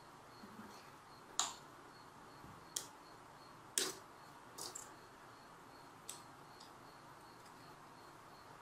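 Scattered sharp clicks and taps of small hand tools, flush cutters and a soldering iron, being handled over a small circuit board, about six in all, the loudest about a second and a half in and just before four seconds in. Under them, a faint even high tick repeats about three times a second.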